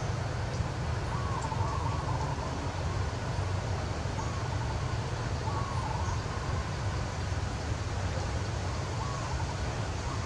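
Steady low outdoor background rumble, with a few faint, short wavering calls heard over it now and then.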